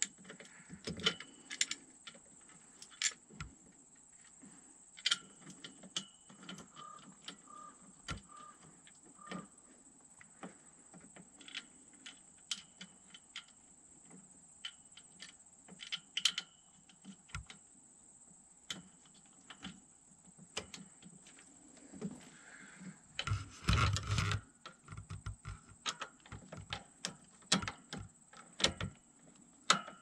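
Scattered clicks, taps and small knocks of plastic and metal parts as hands fit a new turn signal switch onto a semi truck's bare steering column, with a louder spell of rattling and handling about three-quarters of the way through.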